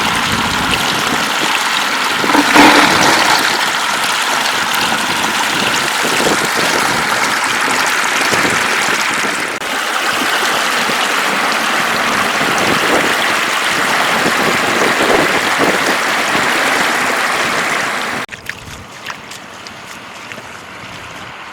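Floodwater running steadily, with a brief louder surge about two and a half seconds in. The sound drops suddenly much quieter about eighteen seconds in.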